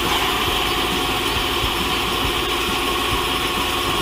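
Large truck engine idling, a steady, unbroken hum.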